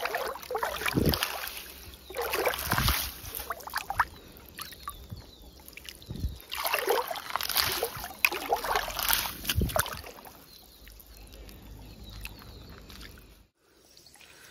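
Shallow stream water splashing and sloshing around bare feet as someone wades through it, in irregular bursts with each step, growing quieter over the last few seconds.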